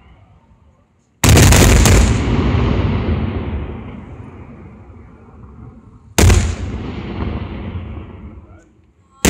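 Fireworks going off as heavy booms: a quick cluster of several bangs about a second in and a single boom about six seconds in, each trailing off in a long echoing tail over a few seconds; another boom starts right at the end.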